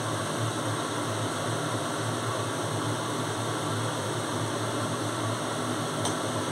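Steady mechanical hum with an even hiss, like a running fan, with a light click near the end.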